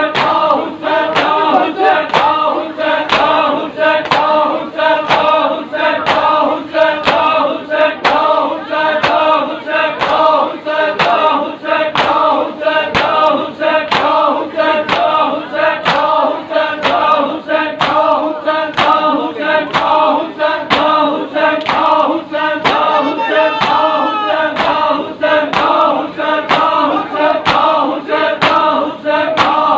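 Shia Muharram matam: a group of men chanting a mourning lament in unison while bare hands slap on bare chests in time, about three strikes every two seconds.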